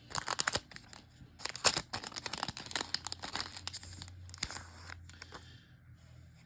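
A trading card pack's wrapper being torn open and crinkled in the hands: a quick run of crackles and rips through the first few seconds, then quieter handling of the wrapper and cards.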